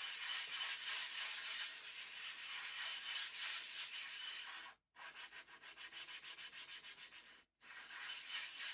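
A 1000-grit aluminium-oxide sharpening stone scrubbed back and forth on a slurry of worn 600-grit silicon-carbide powder, a steady gritty rubbing as its face is ground flat. The sound cuts off abruptly twice, and between the cuts the strokes come in a quick even rhythm.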